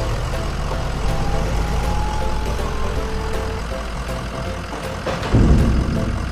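Cartoon construction-vehicle engine sound effect: a steady low engine rumble, with brief steady whining tones in the middle. A louder thud comes a little after five seconds in.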